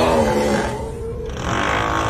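The 'Uuuuuugghhhhhh' snoring meme sound: a long, loud, groaning snore trailing off early on, a short lull about a second in, then the next snore starting to build near the end. A steady drilling-like rumble runs underneath.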